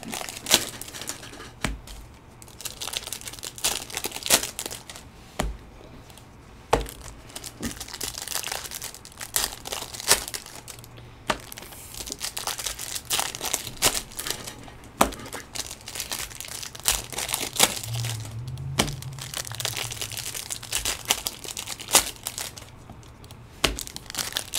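Foil trading-card pack wrappers crinkling and tearing as packs are opened, with frequent sharp clicks and snaps of the cards being handled.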